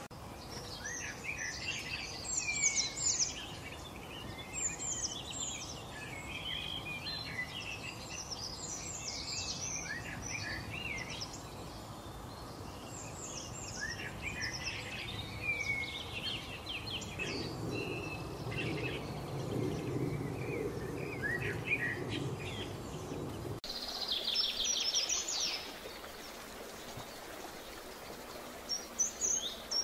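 Several songbirds chirping and singing over a steady outdoor hiss. About three-quarters through, the recording cuts abruptly to a short rapid trill, then fainter high chirps.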